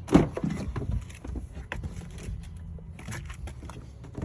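A sharp knock just after the start, then scattered light taps and clicks over a steady low hum.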